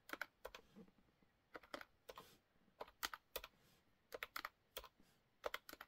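Keys of a plastic desk calculator being tapped: light, sharp clicks in short irregular runs as figures are entered and added up.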